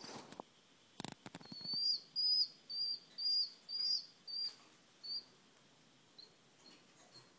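Black francolin chicks, about two weeks old, peeping: a run of seven high, piping calls, about two a second, followed by a few fainter peeps near the end. A few soft clicks come just before the calls.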